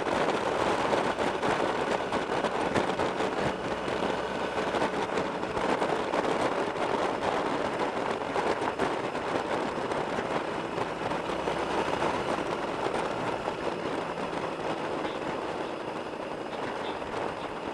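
Wind rushing and buffeting over a motorcycle-mounted camera's microphone at road speed, with the bike's engine and road noise beneath, easing slightly near the end.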